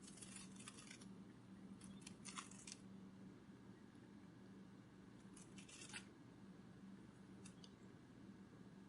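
Butterfly wings fluttering: faint, short bursts of dry rustling, four of them, over a low steady hum.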